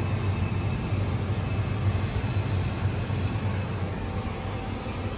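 Tractor engine running steadily while pulling a grain cart, heard from inside the cab as a low, even drone.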